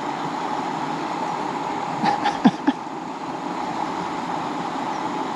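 Steady rush of flowing river water, with a few short sharp clicks and squeaks about two seconds in.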